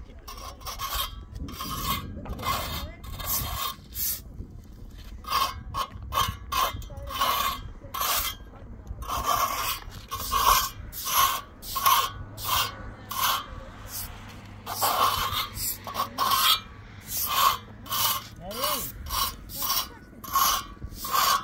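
Repeated rasping, scraping strokes, about two a second, as something is rubbed or scraped back and forth by hand. There is a short lull about four seconds in.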